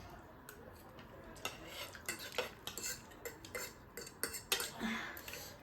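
Light, irregular clinks and taps of cutlery against dishes.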